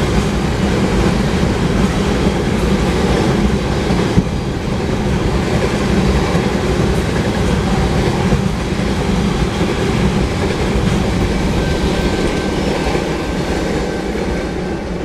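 Loaded oil tank cars of a long freight train rolling past on mainline track: a steady rumble of steel wheels on rail, with a sharp click about four seconds in.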